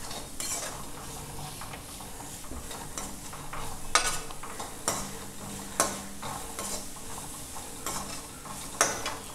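Perforated steel slotted spoon stirring and scraping chopped onions, curry leaves and ginger-garlic paste around a metal kadai, the oil sizzling steadily as they sauté. A few sharp clinks of the spoon against the pan, the loudest about four seconds in.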